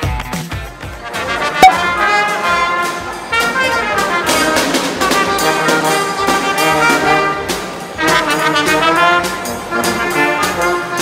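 Small street brass band playing a lively tune, trumpets and a trombone in harmony over a drum. It comes in with a sharp crack about a second and a half in.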